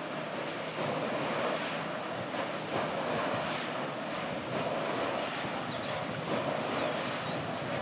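Water splashing and rushing off a turning metal mill water wheel, a steady wash with gentle surges.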